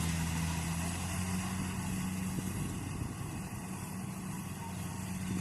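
Farm machinery engine running steadily, a low even hum.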